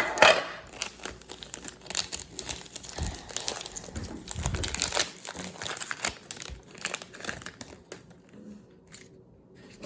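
Packaging crinkling and rustling as a puzzle cube is unwrapped and taken out of its box, in a dense run of small crackles, loudest at the very start, thinning out near the end.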